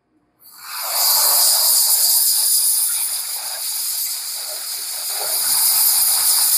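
Spotting-board steam gun hissing steadily as it blasts steam through a garment, starting about half a second in. It is flushing out a ballpoint-pen ink stain loosened with spotting chemicals.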